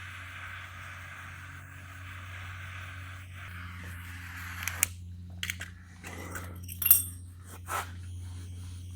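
Butane torch hissing steadily as it heats a seized fender bolt, then shutting off about five seconds in, followed by a few sharp metallic clinks of a tool against the bolt.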